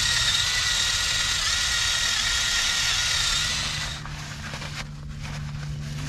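A power tool runs steadily with a hiss and a whine for about four seconds, then stops; a low steady hum follows.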